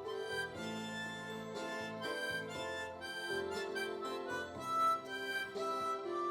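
Harmonica playing a melody of held notes over a low accompaniment.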